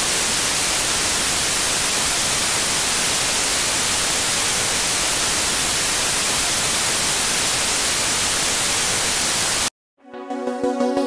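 Loud, steady hiss of analogue television static, the sound of a dead channel with no signal, cutting off suddenly near the end. Right after, electronic synthesizer music starts.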